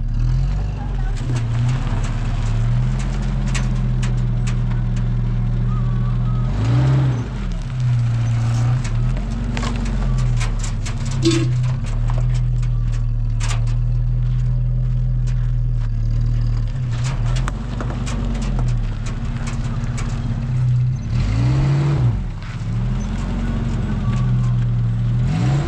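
A motor running steadily with a low hum, its pitch rising and falling every few seconds, with scattered clicks and knocks over it.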